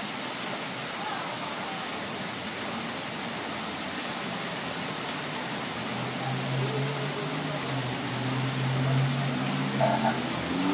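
Steady rush and patter of a fountain: thin water jets arcing from frog statues into a shallow pool, with water running down a tiled wall. About halfway through, a low steady hum joins it.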